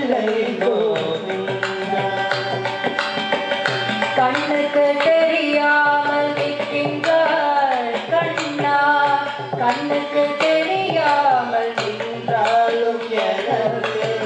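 Carnatic vocal music: male and female singers sing a devotional song in ornamented, sliding melodic lines, accompanied by a mridangam played with the hands.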